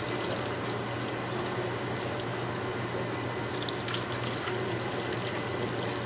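Reduced sauce of brisket drippings poured from a saucepan in a thin, steady stream onto chopped burnt ends in foil pans, a continuous pouring trickle. A low steady hum runs underneath.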